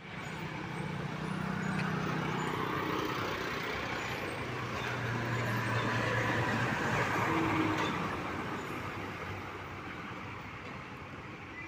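A large tanker truck's diesel engine and tyres passing close by: the sound grows to a peak about seven or eight seconds in, then fades as the truck moves away.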